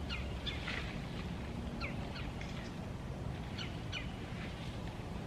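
Birds chirping in short, scattered calls, about half a dozen, over a steady low outdoor rumble.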